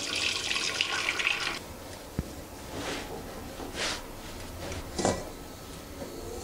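Curdled milk and whey poured from a pan into a cloth-lined steel colander, the liquid splashing as it drains through; the pour stops about one and a half seconds in. Then a small knock and a few short swishes as the cloth is gathered up around the curds.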